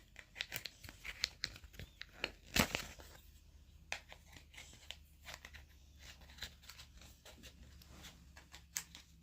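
Packaging being handled and worked open: irregular crinkling, tearing and small clicks and scrapes, with one louder sharp rasp about two and a half seconds in.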